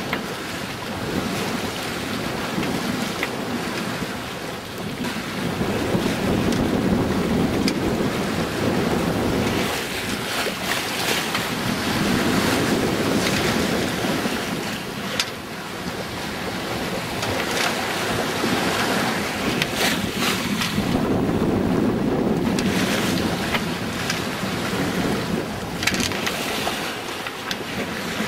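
Wind buffeting the microphone over water rushing and splashing past a small sailboat's hull in a fresh breeze and a moderate sea. The rushing swells and eases every several seconds as waves pass, with louder hissing wash now and then.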